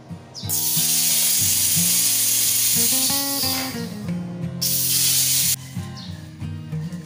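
Pressurised gas hissing out at an air-conditioner's service valve and charging hose, in two loud bursts: a long one of about four seconds, then a shorter one of about a second, each cut off sharply.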